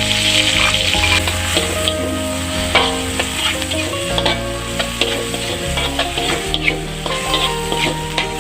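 Food sizzling in a hot pan while being stirred, with a spatula clicking and scraping against the pan many times at an uneven rate.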